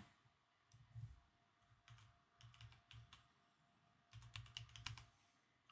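Faint computer keyboard keystrokes: a couple of taps about a second in, then a quick run of keys near the end as a word is typed into a file name.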